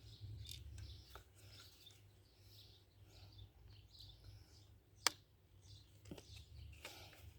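Quiet handling of the parts of a small rechargeable ceiling fan, with one sharp click about five seconds in and a softer click a second later, over a steady low hum.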